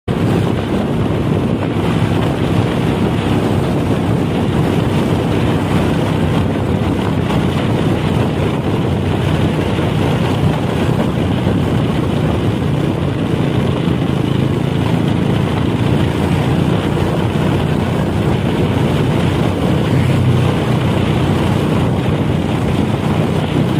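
Steady engine and road noise of a moving vehicle, with wind rushing over the microphone.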